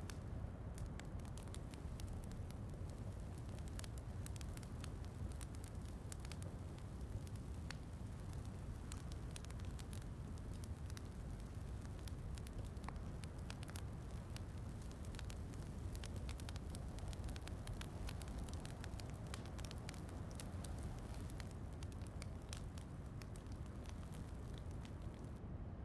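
Wood fire crackling, with scattered sharp pops, over a steady low rumble and soft falling rain.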